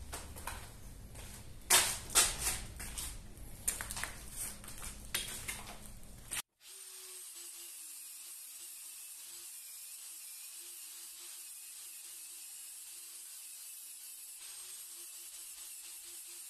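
Ceramic tile piece knocked and shifted on a work surface, a few sharp clacks, for the first six seconds or so. Then an angle grinder with a sanding disc runs steadily with a slightly wavering whine, wearing down the cut edge of the tile to make it fit.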